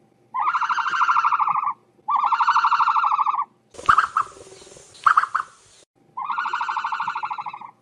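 Ostrich calls: four loud, buzzy, rapidly pulsing calls of about a second and a half each. Between the second and third there is a hissy stretch with two short sharp calls.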